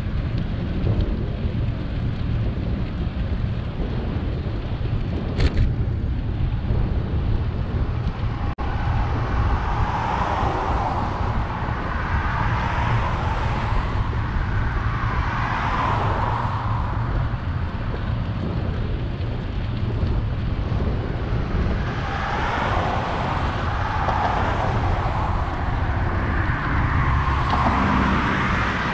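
Steady wind rumble on a bicycle-mounted microphone, with cars passing on the road alongside, each swelling and fading away, several times over.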